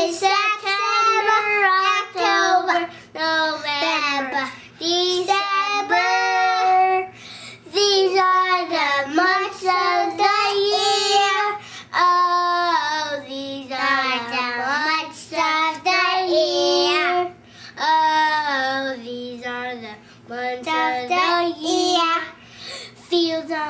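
Two young boys singing together in high children's voices, most likely carrying on a song of the months of the year. The singing runs in phrases with brief pauses between them.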